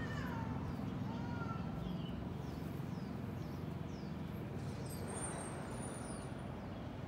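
Open-air background of a steady low hum with birds chirping: a couple of whistled sliding notes at the start, then short high falling chirps about twice a second.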